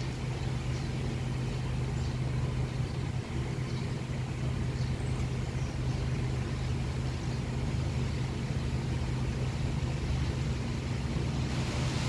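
Strong wind rustling through leafy trees over a steady low mechanical hum.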